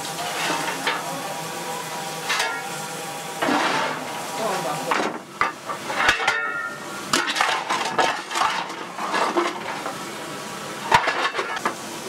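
Irregular metal clanks, knocks and clinks on the footplate of a B1 class 4-6-0 steam locomotive, over a steady hiss of steam.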